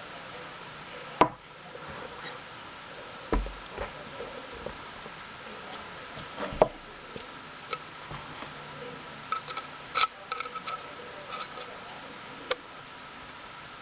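Scattered sharp clicks and knocks of small hard objects being handled and set down on a hard surface, with a dull thud about three seconds in and a quick cluster of clicks past the middle. A faint steady high hum runs underneath.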